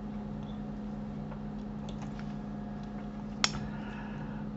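Steady low hum over faint background noise, with a few faint ticks and one sharp click about three and a half seconds in.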